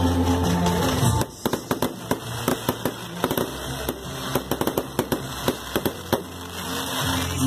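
Aerial fireworks bursting and crackling, a rapid, irregular string of sharp bangs and pops lasting several seconds. Music with a steady bass plays at the start and comes back near the end.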